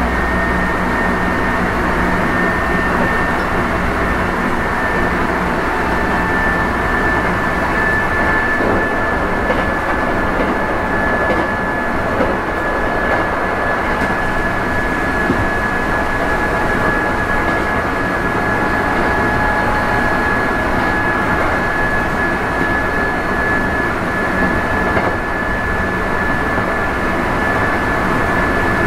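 Sanyo 5000-series electric train running at steady speed, heard from inside a motor car: the Mitsubishi MB-3020 traction motors and gears give a steady high whine over the rumble of the wheels on the rails.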